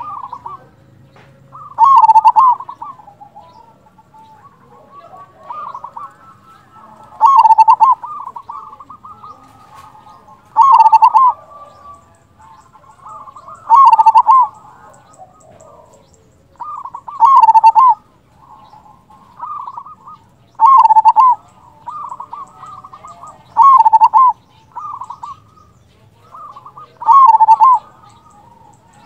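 Zebra dove (perkutut) singing its cooing song over and over: a loud rolling coo about every three and a half seconds, eight times, with softer trilling notes between.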